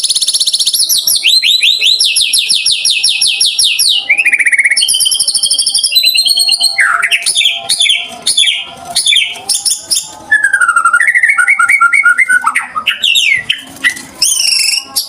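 White-rumped shama (murai batu) singing loudly and continuously: fast trills of rapidly repeated notes in the first four seconds, then a varied run of whistled phrases, rising and falling glides and short trills. The rapid trills are the canary-like bursts ('tembakan kenari') that shama keepers prize.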